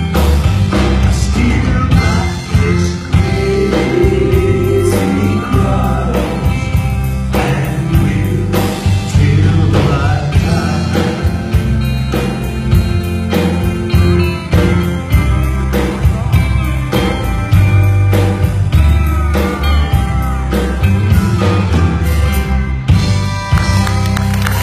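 Male singer performing a song live over amplified band accompaniment, with regular drum strokes and a steady bass line.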